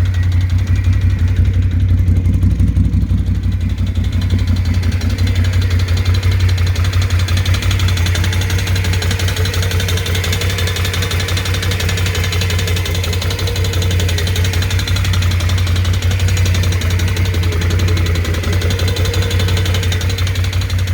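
BRP Can-Am Outlander 650's Rotax V-twin engine running steadily at idle with a fast, even knock coming from inside the engine, the engine knock that the owner is recording as a fault.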